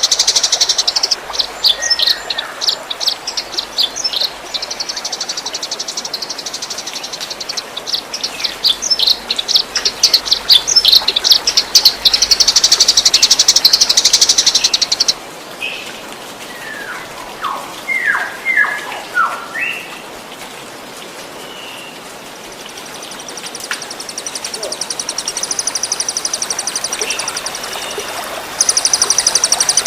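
Songbirds singing rapid, high-pitched trilled bursts: the fast 'tembakan' phrases of a masteran recording for training caged birds, over trickling water. About halfway through, the trills stop and a few short falling whistles come through, then a thin high trill starts and gets louder near the end.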